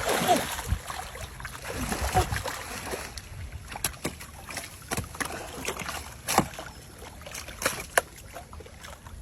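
Water splashing and sloshing, strongest in the first second or so, with scattered sharp knocks and clicks throughout.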